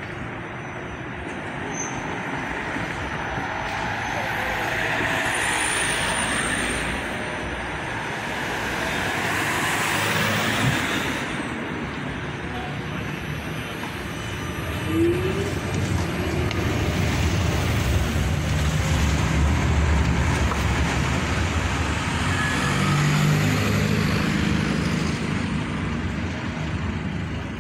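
A TFS (Tramway Français Standard) tram rolling past on its rails, a rising and falling running noise. In the second half the noise of road traffic takes over, with engines running.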